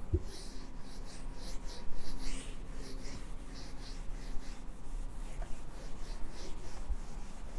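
Whiteboard duster rubbing marker ink off a whiteboard in repeated quick back-and-forth strokes, about two to three a second.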